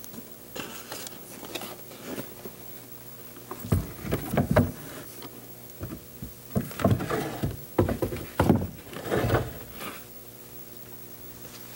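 Hands handling the parts of a wooden acoustical scale model: irregular knocks, taps and scraping of the wooden frame and ceiling pieces. The handling comes in bursts about four seconds in and again from about six and a half to nine and a half seconds, over a steady low hum.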